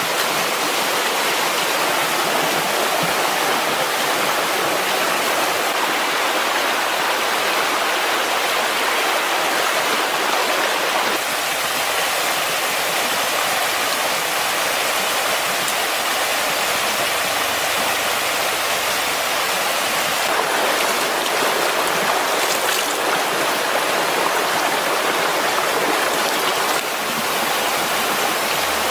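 A shallow, fast-flowing stream rushing steadily over rocks.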